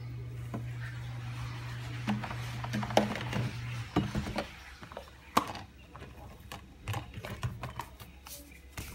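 Scattered knocks and clicks, as of things handled on a kitchen counter, over a steady low hum that cuts off about four seconds in.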